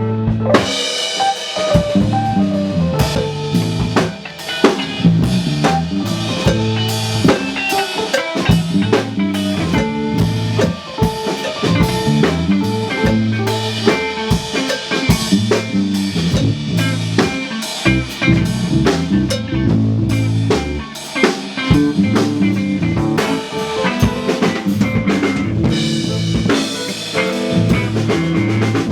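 Rock music with a busy drum kit, sharp snare and bass drum hits, over a low line that moves in steps.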